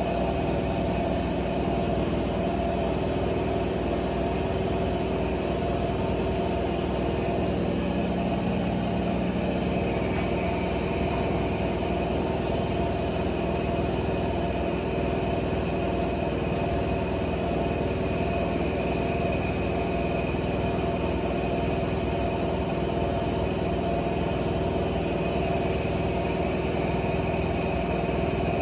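AEG 7000 Series Lavamat front-loading washing machine running steadily, a constant motor hum with a few steady higher whining tones over it.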